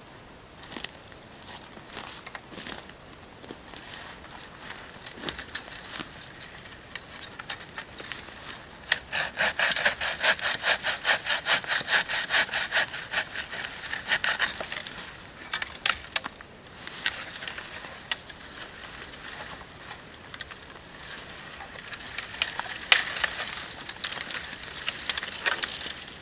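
Hand saw cutting through a dead wooden branch in quick, even strokes, about four a second, for some five seconds near the middle. Before and after, dry branches rustle and snap as they are handled, with one sharp snap a few seconds before the end.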